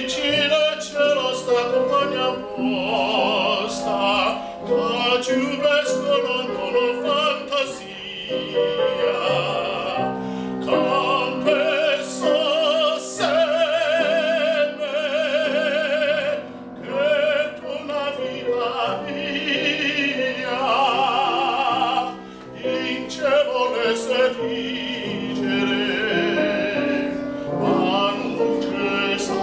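A man singing in operatic style with a wide vibrato, accompanied on a grand piano, with short breaks between phrases.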